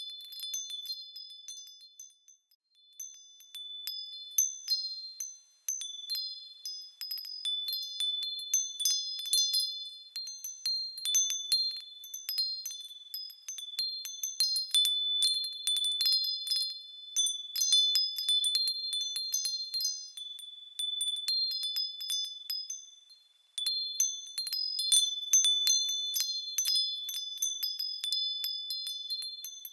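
Small high-pitched bells swinging and ringing, with many light strikes overlapping in an irregular tinkle. Near-silent lulls fall about two seconds in and again a little past twenty-two seconds.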